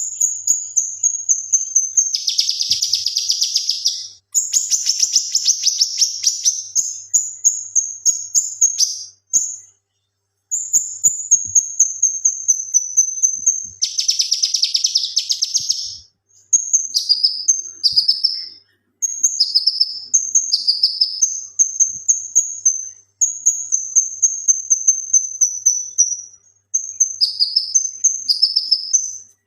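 Male cucak kinoi singing in full song: long, high, slightly falling trills broken by loud dense rattling bursts (the 'tembakan' volleys) about 2, 4 and 14 seconds in, then a run of short notes that each drop in pitch, with brief pauses between phrases.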